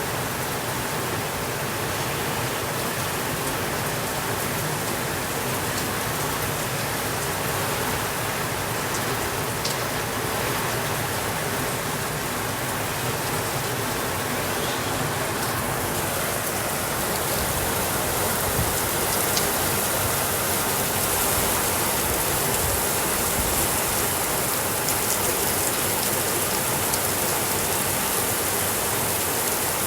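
Steady rainfall: an even hiss of rain falling on surfaces, with scattered faint drop ticks, growing slightly brighter about halfway through.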